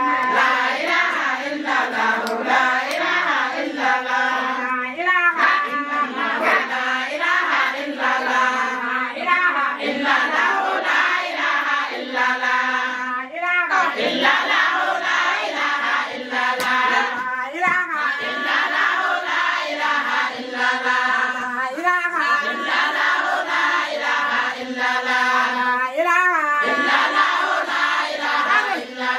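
A group of women singing together in chorus, a continuous chanted song.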